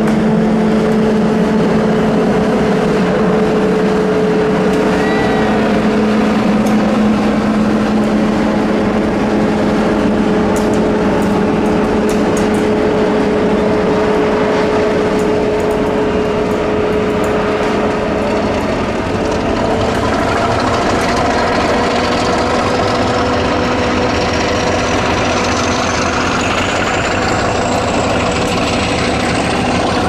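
English Electric Class 50 diesel locomotives running under power, giving the hoover-like whine the class is known for over a steady engine drone. About two-thirds of the way in, a high whine starts to climb steadily in pitch as the engines work harder.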